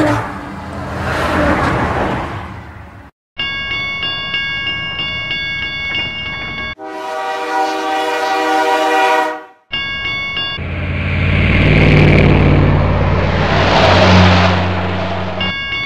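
Dubbed train sound effects: sustained train horn blasts that start and stop abruptly, then a train rumbling past with a low hum.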